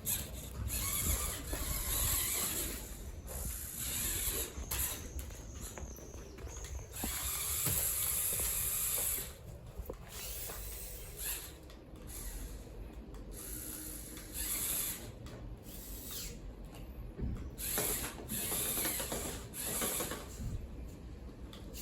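Small remote-controlled competition robot's electric drive motors and gearboxes running in irregular spurts, starting and stopping as the robot is driven and manoeuvred.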